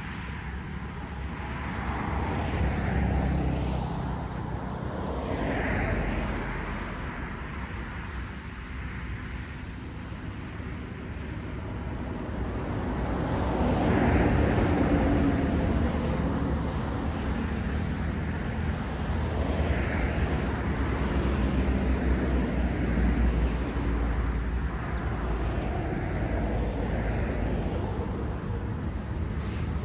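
Road traffic: a steady low rumble as several vehicles pass one after another, each swelling and fading over a few seconds, loudest about halfway through.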